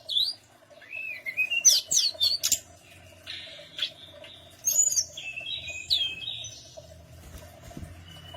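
Tledekan gunung singing: quick high sweeping chirps and short trilled phrases, coming in bursts and thinning out in the last couple of seconds, over a steady low hum.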